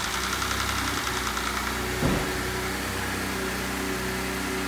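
Ford pickup's six-cylinder engine idling steadily just after starting, with all its ignition coils connected.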